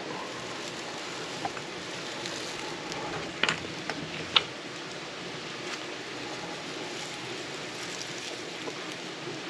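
A few short, sharp scrapes of a Bic lighter's striker wheel spun against its flint, the loudest about three and a half and four and a half seconds in, over a steady rushing background hiss.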